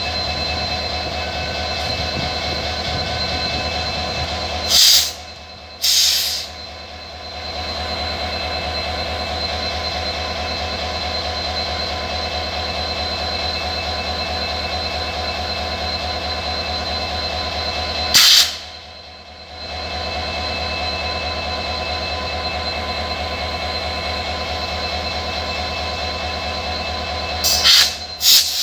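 EMD WDP4 diesel locomotive's 16-cylinder two-stroke engine humming steadily, with several steady whining tones over it. Short, very loud bursts of hiss cut in about five seconds in, again a second later, around eighteen seconds in, and twice near the end.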